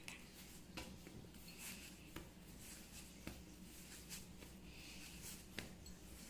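Faint soft rubbing of palms rolling bread dough into ropes on a floured countertop, with a few light clicks.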